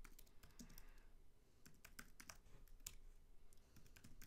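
Faint computer keyboard typing: a run of quick, irregular key clicks, with a brief pause about three and a half seconds in.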